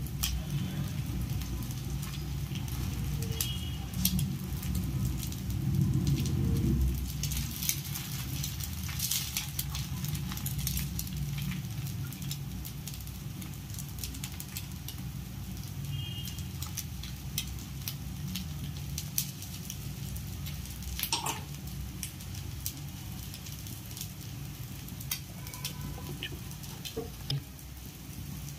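Egg and chilli-garlic paste frying on a moong dal dosa in a frying pan: a light crackling sizzle, with a steel spoon scraping and tapping on the dosa as it spreads the topping, over a low steady hum.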